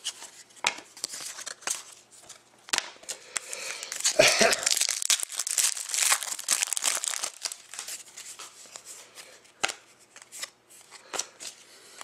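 A foil trading-card pack being torn open and its wrapper crinkled, loudest in the middle. Before and after it, cards are handled with sharp little clicks and snaps.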